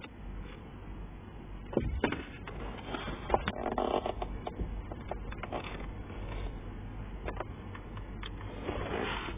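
Clicks, knocks and plastic scraping as the ignition key and steering wheel of a Peugeot 308 SW are handled and a screwdriver is pushed into the release hole behind the steering wheel to unclip the driver's airbag. The loudest knocks come about two seconds in, with scraping a little after, over a faint steady low hum.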